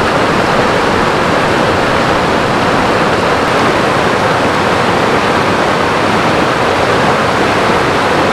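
A shallow, rocky stream running over rocks close by: a steady, even rush of water.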